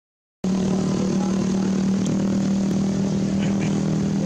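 A steady engine hum with a constant low drone starts abruptly just under half a second in. A few faint short chirps sound over it.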